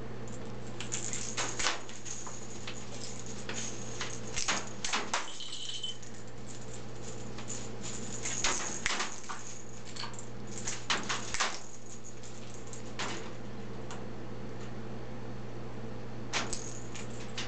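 Small plastic rattle ball for cats being tossed about and knocked against a wire cage by a pet raven: short bursts of rattling and clicking every few seconds, over a steady hum.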